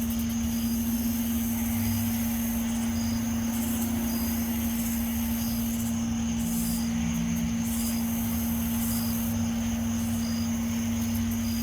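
Steady low-pitched hum held on one tone, with a weaker drone beneath it and faint short high beeps repeating about once a second.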